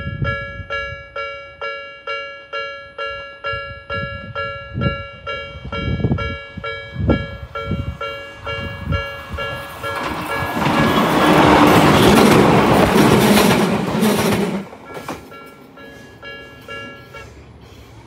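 Japanese level-crossing electronic warning bell of the 'Nikko type' tone, dinging about twice a second. An electric train approaches and passes over the crossing, its wheel and running noise loudest about ten to fifteen seconds in. The bell stops near the end.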